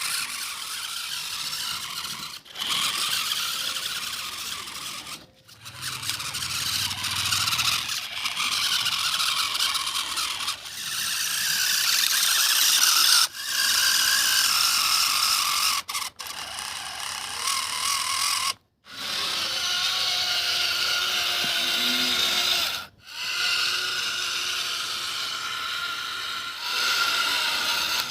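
Small electric motor and gears of a toy tractor whirring with a high, thin sound. It breaks off abruptly for a moment several times.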